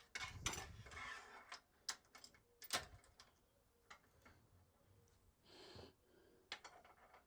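Faint, scattered clicks and clinks of small metal parts (bolts, nuts and spacers of a rear spindle kit) being handled and set down, with a couple of short rustles.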